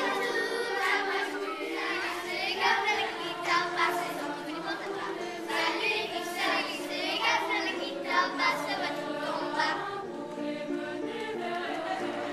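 A group of children singing together over instrumental music accompaniment.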